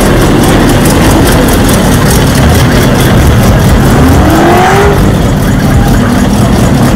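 A car engine revving over a loud, steady low rumble, its pitch rising briefly about four and a half seconds in.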